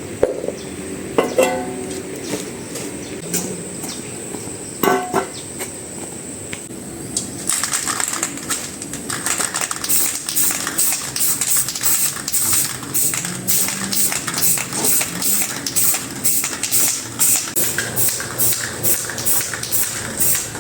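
Background music with guitar; a steady beat comes in about seven seconds in, with a few scattered knocks before it.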